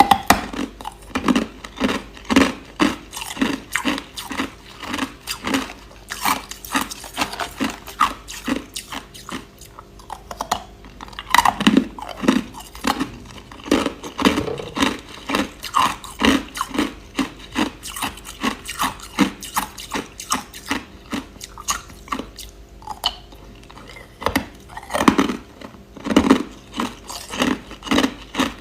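Hard, clear crushed ice being chewed close to the microphone: rapid, crisp crunches about two to three a second, with a couple of brief pauses between mouthfuls.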